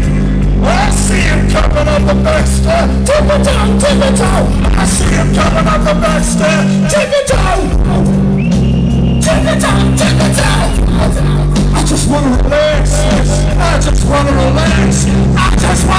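Rock band playing live through a big PA, heard from inside the crowd: electric guitars, bass and drums at full volume, with a brief break in the sound about seven seconds in.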